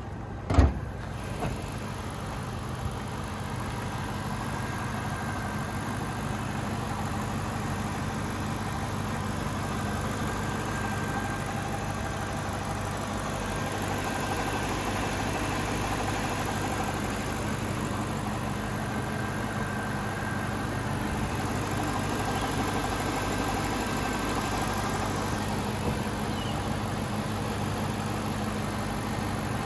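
BMW N62B48 4.8-litre V8 idling steadily, with a single sharp thump about half a second in.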